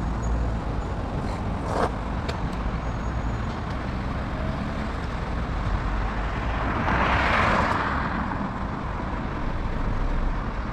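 Steady road and vehicle rumble during a ride, with a louder rushing hiss that swells and fades about seven seconds in.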